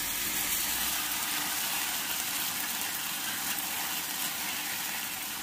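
Onions and capsicum coated in a freshly added soy-chilli sauce sizzling steadily in a hot frying pan while being stirred with a spatula.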